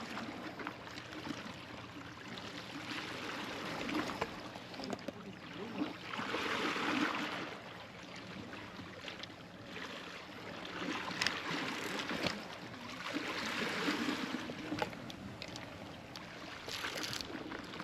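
Sea water surging and washing over shore rocks, swelling and ebbing twice, with a few small clicks.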